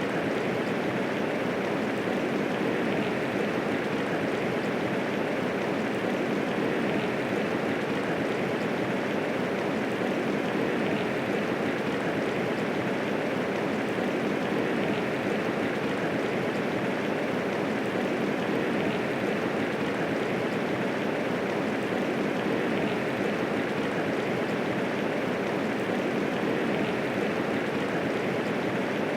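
Steady medium rainfall, an even unbroken hiss of rain with no distinct drops standing out.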